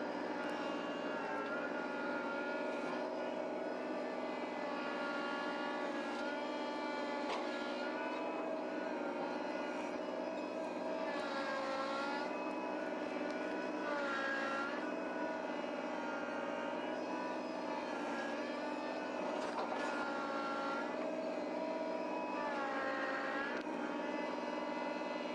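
Small Kubota compact tractor's diesel engine running steadily, its pitch dipping and coming back up several times as the load or throttle changes.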